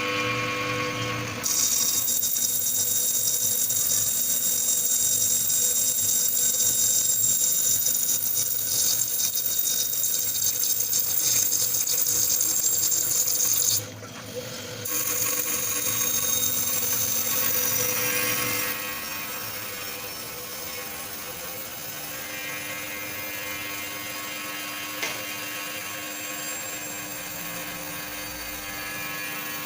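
CNC wire-cutting machine cutting a steel ball: a loud, high, steady hiss over a machine hum, broken by a short pause about halfway through. For the last third it drops to a quieter hum with several steady whining tones.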